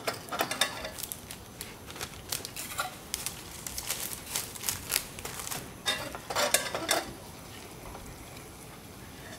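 Metal dalgona-making utensils clinking and scraping in quick irregular strokes, which stop about seven seconds in.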